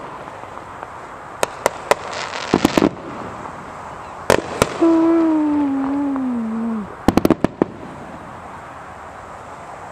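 Aerial fireworks going off: sharp single bangs, a brief run of crackles, and a quick cluster of reports. Near the middle, a falling tone lasts about two seconds and is the loudest sound.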